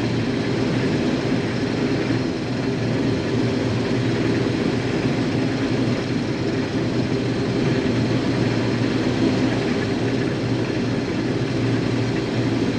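Case IH combine running steadily under load while cutting wheat: a constant engine drone with the even noise of the header and threshing machinery.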